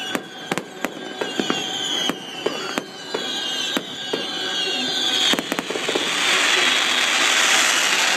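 Fireworks going off: a rapid, irregular series of sharp bangs with several falling whistles, then from about five and a half seconds in a dense, continuous crackling.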